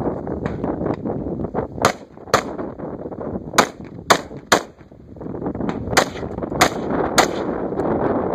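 Eight gunshots from a competition shooter, in three quick strings of two, three and three about half a second apart, with pauses of about a second between strings, over a steady background rush.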